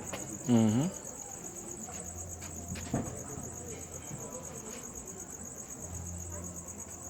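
Continuous high-pitched chirring of crickets, with a short vocal sound about half a second in and a single click about three seconds in.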